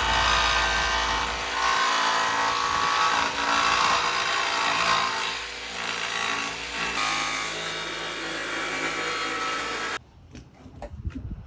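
Jigsaw running steadily as it cuts through a van's sheet-metal roof panel, cutting off suddenly near the end.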